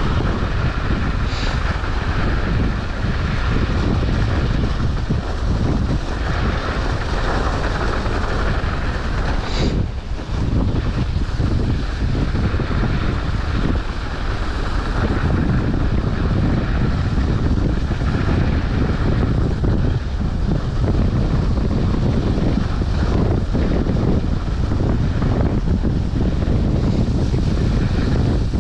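Wind buffeting the microphone while riding a mountain bike: a loud, steady rush heaviest in the low end, with two short high squeaks about one and ten seconds in.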